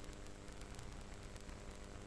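Low, steady hiss with a faint electrical hum and light static crackle: background noise of the recording with no one speaking.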